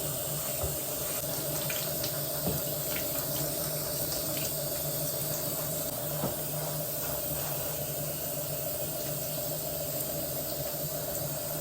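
Tap water running steadily, rinsing soap from a chicken's feathers, with a constant low hum underneath.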